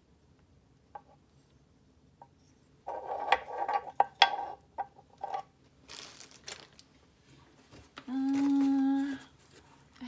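Small hard-plastic cake-topper figurines clicking and knocking as they are handled and set down on a wooden board, a brief rustle, then a short hummed "mm" from a woman's voice lasting about a second near the end.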